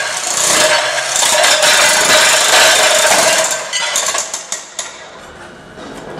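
Electric demolition hammer mounted on a wheeled jackhammer trolley running, its chisel scraping and lifting floor tiles off concrete. About three and a half seconds in the noise dies down to scattered clicks, and it cuts off at the end.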